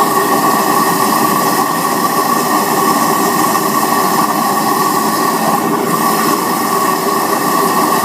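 Waste-oil burner with a Hago siphon nozzle running on oil only, its compressed-air-atomised flame making a loud, steady roar with a high tone running through it.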